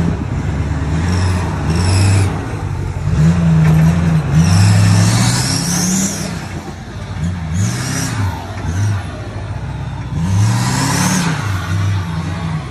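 Ford F-450 diesel pickup's engine revving up and down repeatedly as the truck crawls over rocks, with a high whine rising along with the revs about five and eleven seconds in.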